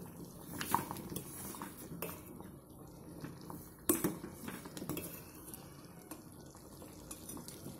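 A steel ladle stirring thick tamarind gravy in a stainless-steel pot, clinking and scraping against the metal in a few knocks, the sharpest about four seconds in. Beneath it is faint bubbling from the gravy, which has just come to the boil.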